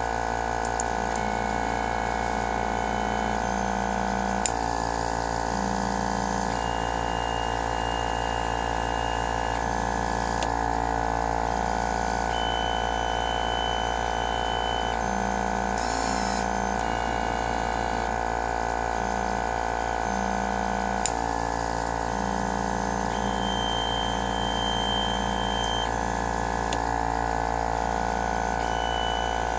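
Homemade pick-and-place machine running a placement job: a steady mechanical drone with short pitched whines from its motors, starting and stopping as the head moves. There are three sharp clicks and one brief hiss along the way.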